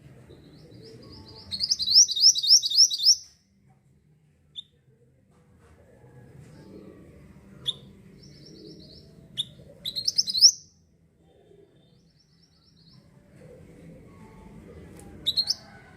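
Black-naped monarch (mantenan) singing: fast runs of repeated high notes, several times over, with single sharp chips between the runs. A faint low background rumble runs underneath.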